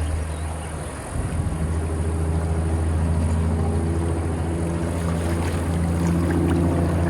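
An engine running steadily, a low drone that eases off briefly about a second in and then comes back.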